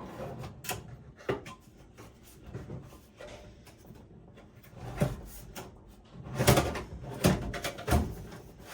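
Clicks and knocks of desktop computer parts being handled, sparse at first, then a cluster of louder knocks from about five seconds in.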